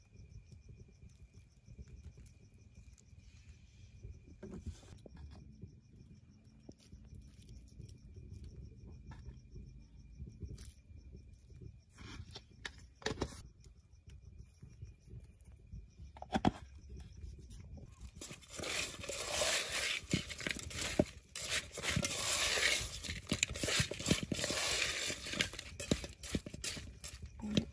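Hand tossing spice-coated yam slices in an aluminium pot: a dense rustling, scraping clatter of slices against each other and the metal, full of small clicks. It starts about two-thirds of the way in and keeps going. Before that there are only a few scattered clicks over a low rumble.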